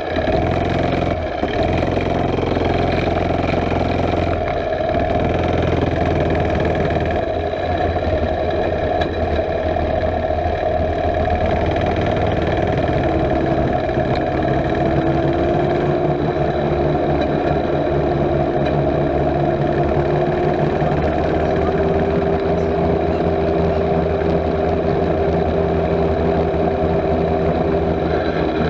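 Mini bike's small gasoline engine running steadily while being ridden, its pitch rising as it picks up speed partway through.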